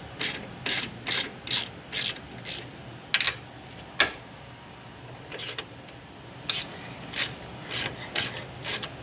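Socket ratchet clicking in short runs, about two clicks a second, as it spins off the 13 mm top nuts of a front strut mount, with two sharper knocks around three and four seconds in and a short pause before the clicking resumes.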